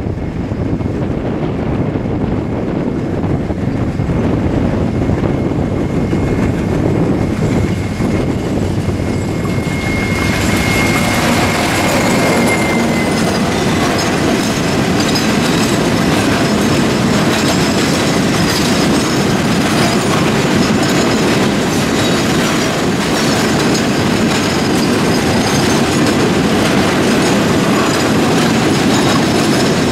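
Diesel locomotive approaching and passing at speed, then a long train of tank wagons rolling past close by, steel wheels clattering rhythmically over rail joints. A thin high whine rides over the locomotive's rumble and fades out about twelve seconds in, as the wagons' clatter takes over.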